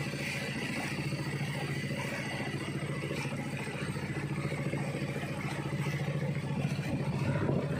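Boat engine running steadily with the boat under way: a low, even drone with a fast, regular chug.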